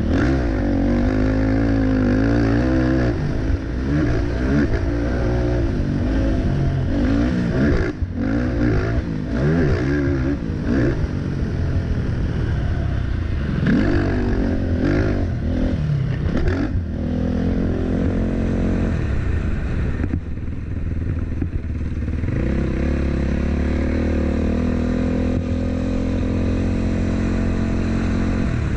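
Racing quad ATV's engine heard from onboard, revving up and down repeatedly as the throttle is worked through corners and straights, with brief drops off the throttle, then holding a steadier note near the end. The machine clatters over the rough dirt track.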